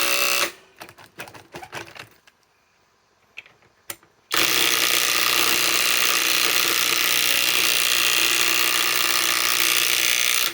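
Cordless compact impact wrench hammering as it drives a large fastener in. It stops about half a second in, leaving a few knocks and a short pause, then hammers steadily again from about four seconds in until it cuts off suddenly.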